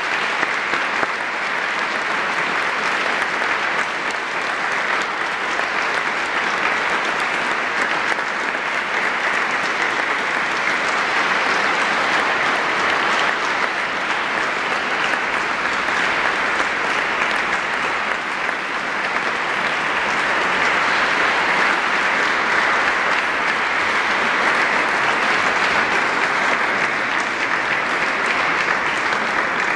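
Concert audience applauding steadily in a large church, the clapping growing a little louder about two-thirds of the way through.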